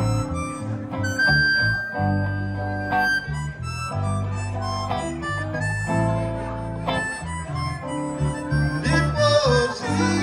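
Amplified blues harmonica, cupped to a hand-held vintage microphone, playing lead with one long held note about a second in, over an electric bass line and guitars.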